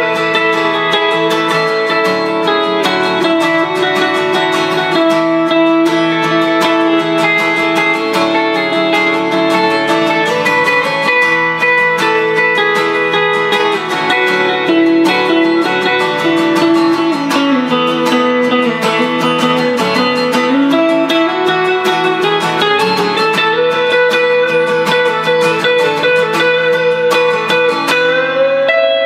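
An acoustic guitar strummed together with a solid-body electric guitar in an instrumental passage, with no singing. The electric guitar's held notes glide up and down in pitch.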